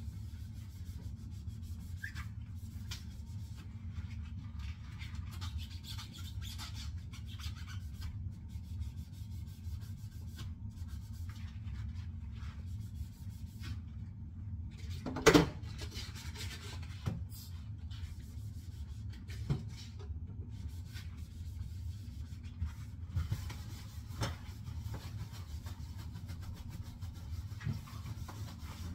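Rubber-gloved hands rubbing and scrubbing dishes, with scattered small clicks and scrapes and one loud knock about halfway through, over a steady low hum.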